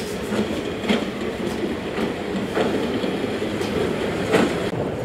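Broad-gauge vintage passenger carriages rolling past: a steady rumble of wheels on rail with half a dozen sharp clicks at uneven intervals as the wheels cross rail joints, the loudest near the end.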